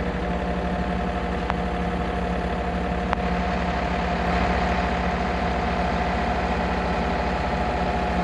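Compact excavator's diesel engine running steadily, heard from the operator's cab. A steady whine sits over it and grows slightly louder about halfway through, and there are a couple of faint clicks.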